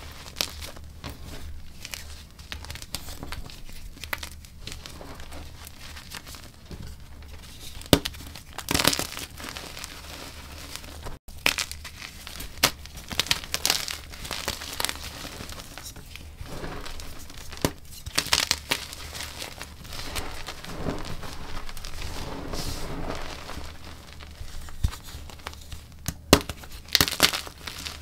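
Chunks of dyed gym chalk being crushed and crumbled by hand: irregular dry crunches and crumbling crackle as the blocks break into powder, with a few louder snaps of bigger pieces breaking.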